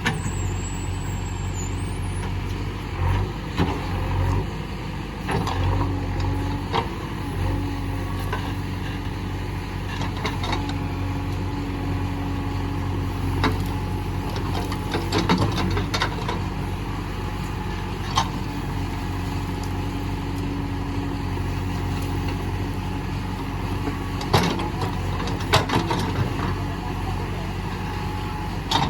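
JCB 3DX backhoe loader's diesel engine running steadily while it digs, with scattered knocks and clanks from the working arm and bucket, most frequent around the middle and near the end.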